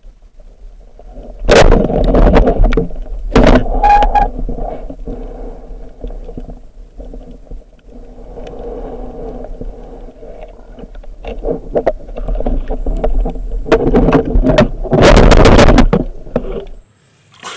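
Muffled water noise heard through an action camera's waterproof housing, with a steady low rumble and loud splashing surges about two seconds in and again near the end, after which the sound drops away abruptly.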